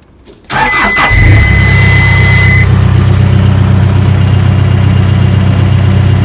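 A vehicle engine starts up about half a second in and settles into a steady, loud idle. A steady high beep sounds for about two seconds just after it catches.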